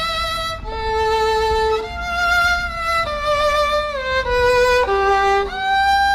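Violin music: a slow melody of about eight held, bowed notes, moving up and down in pitch.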